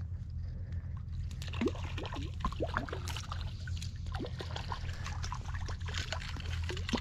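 Small splashes and sloshing from a hooked little brown trout at the water's surface, with scattered crackles of dry reeds and a steady low wind rumble on the microphone.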